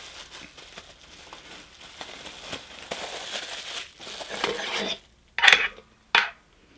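Plastic packaging crinkling and rustling as it is handled, with two short, louder crackles of plastic near the end.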